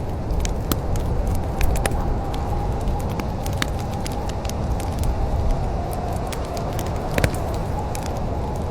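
Wood fire in a fireplace crackling, with many sharp irregular pops and snaps over a steady low rumble.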